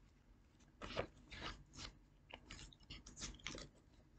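Paper envelope on a picture-book page being opened and a small letter card pulled out of it: a run of faint, short paper rustles and crinkles starting about a second in.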